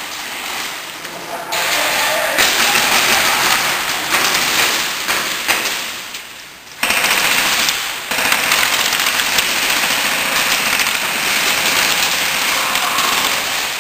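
Airsoft guns firing rapid full-auto bursts, a dense fast rattle of shots. It dips briefly about six seconds in and picks up again suddenly.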